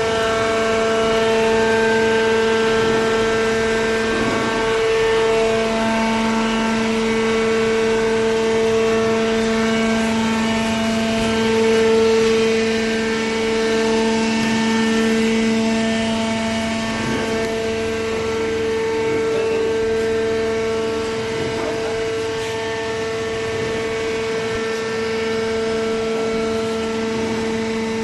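Automatic waste paper baler running, its hydraulic pump and motor giving a steady hum with a low tone and one an octave above.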